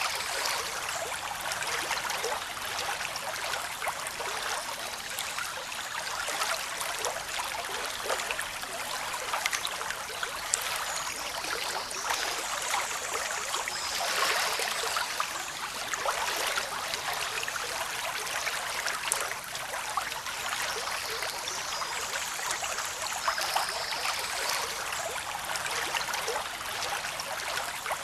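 Running water: a steady, even rush full of small fizzing splashes.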